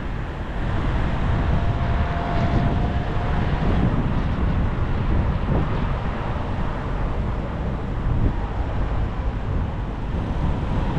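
Road traffic noise heard from a moving bicycle, with steady low wind rumble on the microphone; a faint steady whine sounds for a couple of seconds about two seconds in.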